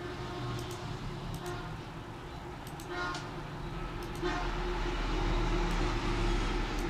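Street traffic: a steady engine rumble that grows louder about halfway through as a vehicle passes, with two short horn toots about a second apart near the middle.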